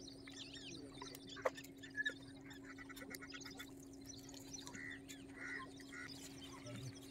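Many small birds chirping, with a short rapid trill about three seconds in. Two sharp clicks come a second or two in, over a steady low hum.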